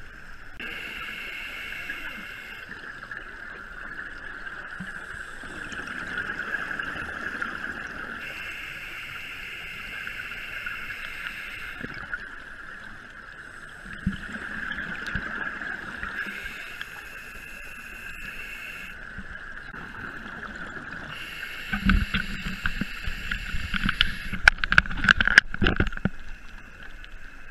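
Scuba regulator breathing heard underwater: a hiss lasting two to three seconds on each inhale, repeating every few seconds, and bubbling exhales that are loudest near the end. A steady high hum runs underneath.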